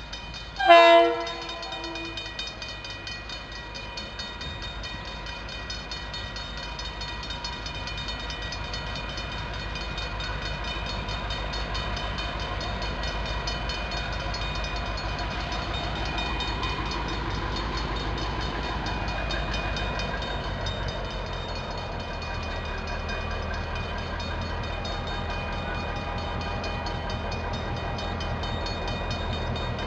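DBR-class diesel locomotive with an EMD 645 V8 engine: one short horn blast about a second in, the loudest sound, then the engine's steady low rumble growing gradually louder as the train approaches.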